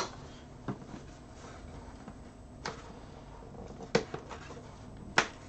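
A few short, sharp taps and clicks of hands handling a cardboard power supply box still closed with its factory seal tape, about four over five seconds with quiet between.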